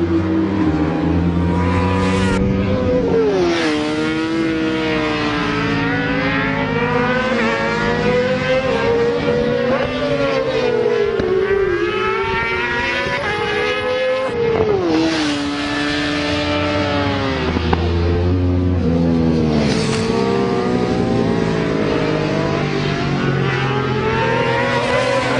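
600cc supersport racing motorcycles at race pace, engines revving up through the gears and dropping back on braking for the corners, several bikes heard at once.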